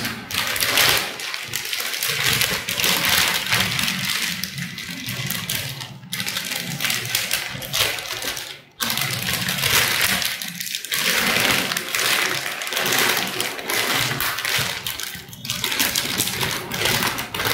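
Thin clear plastic packaging crinkling and rustling as hands handle it and work it off a car duster, with two brief breaks partway through.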